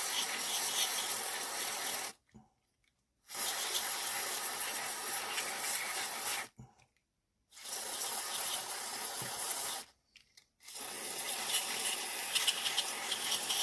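Aerosol cleaner sprayed through a thin straw nozzle onto a small model-locomotive motor, in long hissing blasts of two to four seconds with brief pauses between, four in all.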